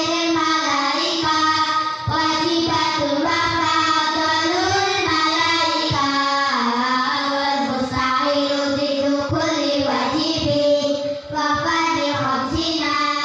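Music: a song with a high sung vocal melody over a backing track, playing continuously.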